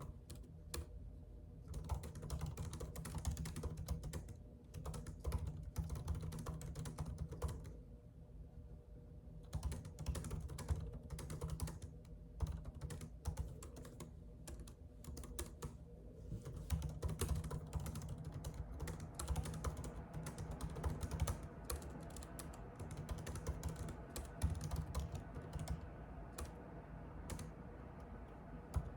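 Typing on a computer keyboard: rapid runs of key clicks in bursts, with short pauses between them.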